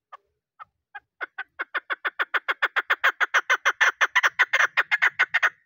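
Female chukar partridge calling: a run of short clucking notes that starts slow and sparse, speeds up to about six a second while growing louder, then stops abruptly near the end.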